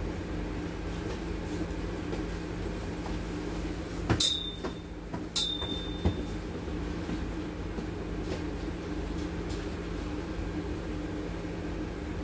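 Scania N280UD biogas double-decker bus engine idling steadily while the bus stands at a red light. About four seconds in come two sharp knocks a little over a second apart, each with a brief high ring, then a smaller knock.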